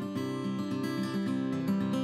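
Intro music played on acoustic guitar, a run of plucked notes.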